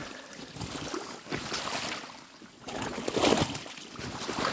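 Footsteps wading through shallow meltwater, splashing and breaking through thin ice with each step, in uneven surges; the loudest step comes about three seconds in.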